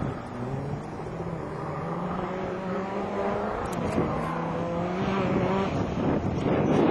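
Off-road competition vehicle's engine running under load, its note climbing, dipping once near the middle, then climbing again, and growing louder as it comes closer.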